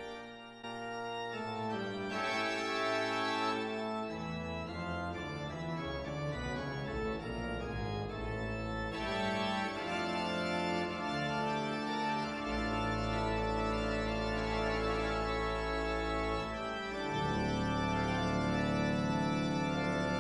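Background organ music: sustained chords over a low bass line.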